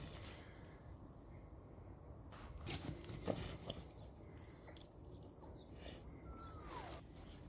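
Quiet outdoor ambience: a low rumbling background with a few light clicks and rustles, and a couple of thin high whistles in the second half, one falling in pitch.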